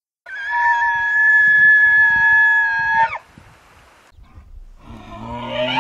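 Bull elk bugling: a loud, high whistle held steady for nearly three seconds that drops sharply at its end. After a short pause a second bugle begins near the end, with low notes under a high whistle that rises in pitch.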